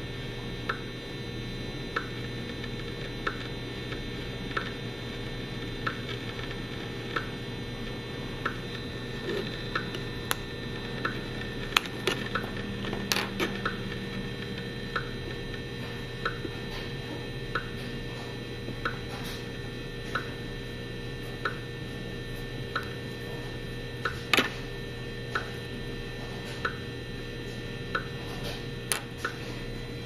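EMFields Acoustimeter RF meter's audio output turning a Fitbit's pulsed radio transmissions into short, regular clicks a little over a second apart, over a steady electronic hum. A few louder knocks come from the Fitbit being handled against the meter.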